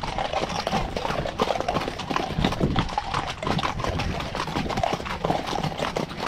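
Hoofbeats of several horses walking along a wet, muddy track: a dense run of overlapping clip-clops.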